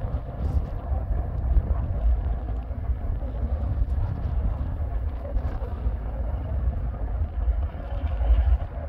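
Freight train rolling past close by: a steady low rumble with no clear engine note, and wind buffeting the microphone.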